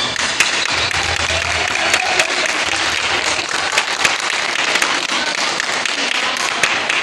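Audience applauding: dense clapping from many hands in a large hall.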